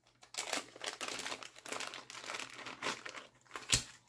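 Small clear plastic zip bag crinkling and rustling in the hands as it is opened and its contents pulled out, with one sharp click near the end.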